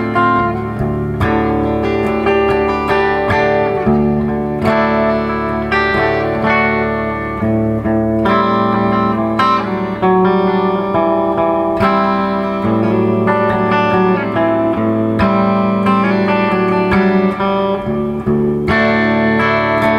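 2013 Gretsch White Falcon G6136T hollow-body electric guitar with Filtertron pickups, played through a Laney amp: chords picked and strummed one after another, each ringing into the next. Both pickups are on, with the neck pickup dialed back a touch.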